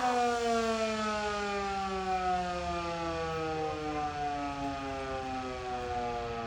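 Federal Signal Model 2 outdoor warning siren winding down, one steady tone with its pitch falling slowly as the rotor coasts down at the end of the test.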